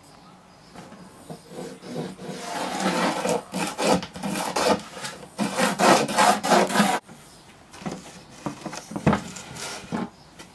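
A file or rasp scraping back and forth along the edge of a plywood board: quick repeated strokes that start about two seconds in and run for about five seconds, then a few lighter strokes.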